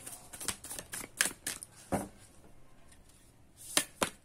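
A deck of oracle cards being shuffled and handled by hand: a run of quick card clicks and snaps in the first two seconds, then a few single sharp snaps as a card is drawn.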